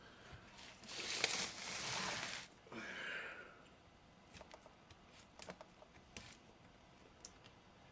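Handling noise as parts are worked by hand: a rustling scrape lasting about a second and a half, a shorter scrape right after, then a few light clicks and taps.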